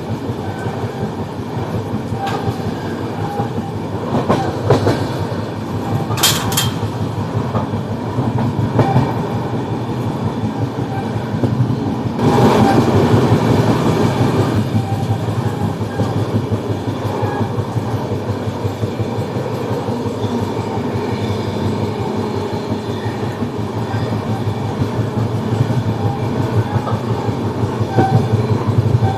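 Passenger train running along the track: the coach's steady rumble with wheels clicking over rail joints. There is a brief sharp high-pitched sound about six seconds in, and a louder rush of noise for about two seconds near the middle.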